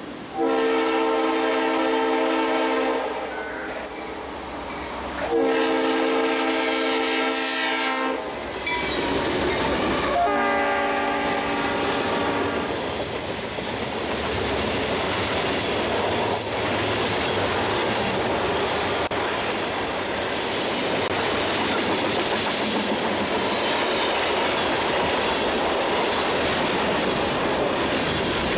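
Freight locomotive horn sounding three long blasts, each a chord of several tones, as the train approaches. Then a line of covered hopper cars rolls past with steady wheel and rail noise.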